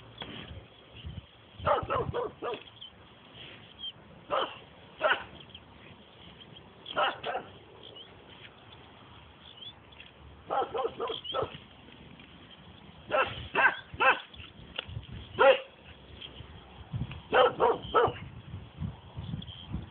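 Norwegian elkhound barking in short bursts of two to four barks, repeated every couple of seconds.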